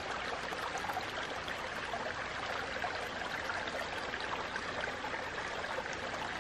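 A stream running steadily, an even wash of water noise.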